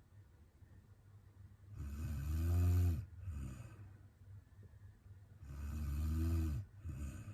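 A sleeping woman snoring: two long, rattling snores about three and a half seconds apart, each followed by a short, softer breath.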